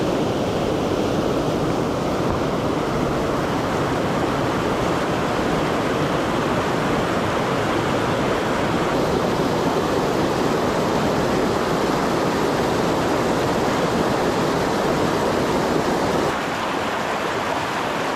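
Fast mountain stream rushing over boulders: a steady, loud rush of whitewater that drops a little in level near the end.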